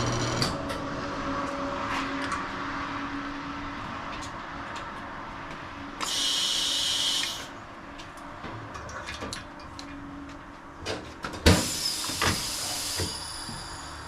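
Tire-shop work sounds. A machine hum cuts off about half a second in, followed by scattered metal clicks and two short hisses of compressed air. The second hiss, near the end, is louder and comes with sharp metal knocks.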